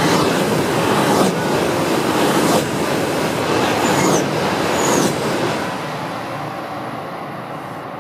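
E5 and E6 series Shinkansen coupled train passing at speed: a loud rush of wheels on rail and air, with four sharper surges as the cars go by. It fades off after about five and a half seconds as the train draws away.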